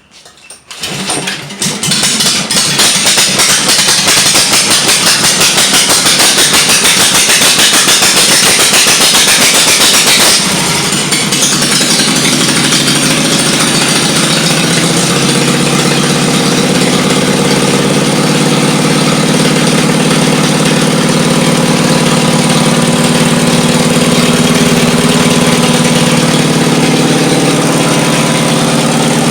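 Kawasaki FH430V 15 hp V-twin lawnmower engine catching within the first couple of seconds and running loud and fast, then dropping to a lower, steady running speed about ten seconds in.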